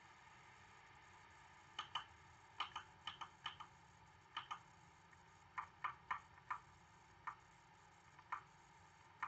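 Laptop keyboard being typed on: irregular runs of light key clicks starting about two seconds in, over a faint steady hiss.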